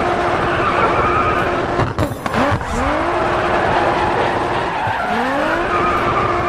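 Car tyres screeching in a drift, with the engine revving in rising pitch sweeps, dropped in as a sound effect that cuts off abruptly at the end.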